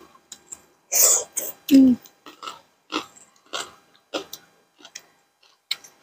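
Close-miked eating sounds: a string of short crunches, smacks and mouth clicks from chewing papaya salad and raw vegetables. A louder smack comes about a second in, followed just after by a brief low vocal sound from one of the eaters.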